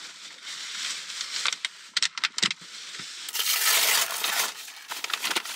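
Paper and plastic grocery bags rustling and crinkling as they are opened and handled, with a few sharp clicks about two seconds in and a louder stretch of crinkling midway.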